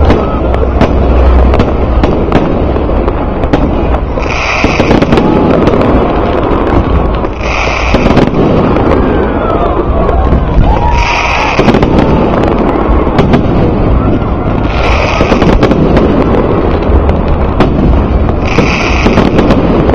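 New Year fireworks display going off continuously, many sharp pops and bangs over a low rumble, with crowd voices. A short high beep repeats about every three and a half seconds.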